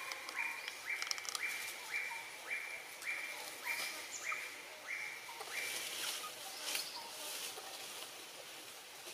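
A bird calls a series of identical clear notes, about two a second and slowing a little, stopping about six seconds in. A few short scratchy rustles sound around it.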